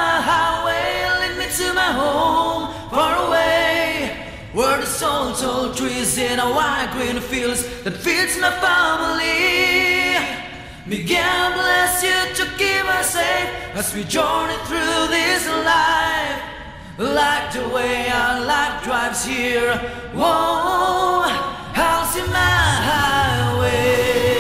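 Several voices singing together in harmony, a cappella, in phrases with short breaths between them.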